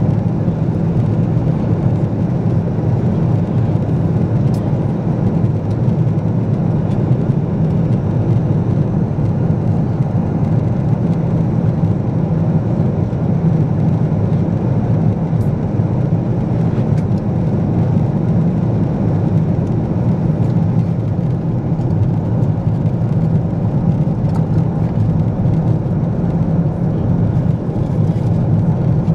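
Steady low cabin noise of a Boeing 777-200ER airliner in cruise: engine and airflow noise heard inside the passenger cabin, unchanging throughout.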